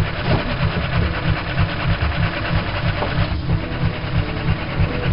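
Fast, steady mechanical clatter with a strong, even low-pitched pulse, like running machinery.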